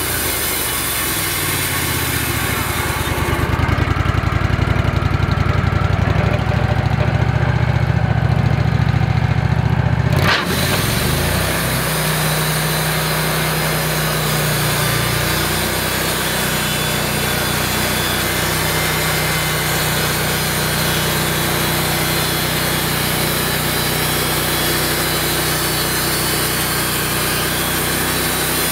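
Wood-Mizer LX150 band sawmill's gas engine running: it speeds up about a second in and runs hard for about nine seconds, then drops abruptly and runs on steadily at a lower speed.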